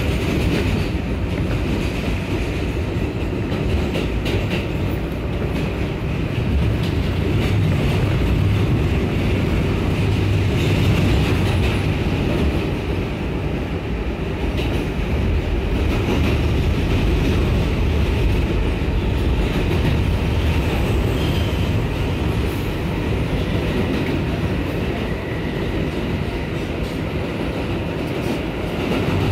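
New York City subway 4 express train running at speed in the tunnel, heard from inside the car: a steady, heavy rumble of steel wheels on rail with light clicking over the track.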